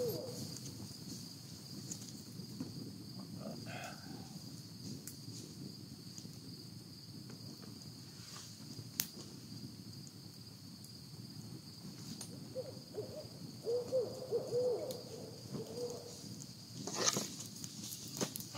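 An owl hooting: a run of wavering hoots about two-thirds of the way through, over a steady high insect trill. A campfire crackles with scattered pops, and there is a louder clatter near the end as wood is put on the fire.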